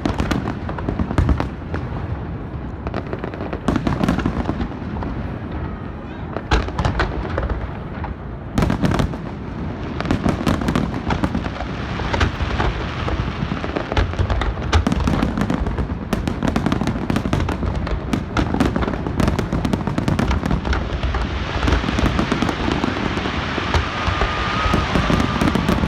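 Aerial fireworks shells bursting in a long run of sharp booms. From about ten seconds in, the bangs come much faster and thicker into a dense crackling volley. Near the end a few short whistling tones sound.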